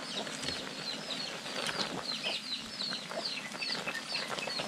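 Birds chirping: a steady run of short, high, falling chirps, several a second.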